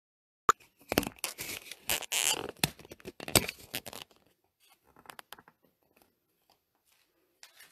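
Handling noise from the phone that is filming: knocks and scraping rustle of fingers over its microphone for about three and a half seconds, then a few faint clicks.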